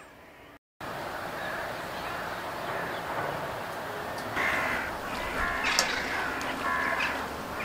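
A flock of gulls calling: harsh, repeated calls begin about halfway through and continue over a steady rush of outdoor background noise.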